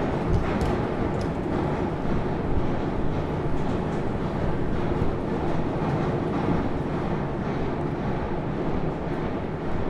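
Moscow Metro train running at speed: a steady rumble of wheels on rails, with a few faint clicks in the first second or so.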